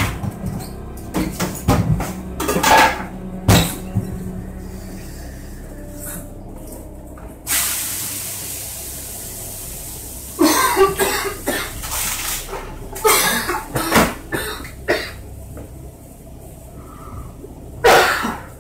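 Kitchen clatter as a frying pan and cupboards are handled: a string of sharp knocks and bangs. A hissing rush rises about halfway through and fades over a couple of seconds, and another loud burst comes near the end.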